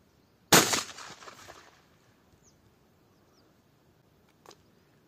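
A single shotgun shot about half a second in, fired at a flying dove, its report dying away over a second and a half. A faint click near the end.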